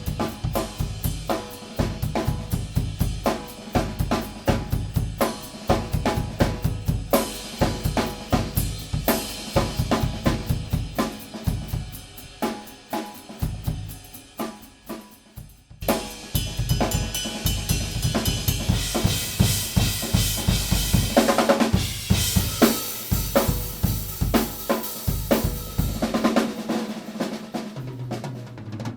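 Acoustic drum kit played solo: fast bass drum, snare and tom patterns with hi-hat and cymbals. The playing eases off briefly about halfway through, then returns with heavy crash cymbals ringing over the drums before dying down near the end.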